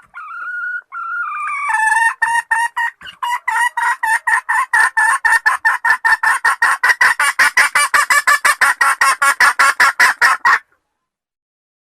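Wild red junglefowl calling: a drawn-out note, then a long rapid run of clucks at about five a second that stops abruptly.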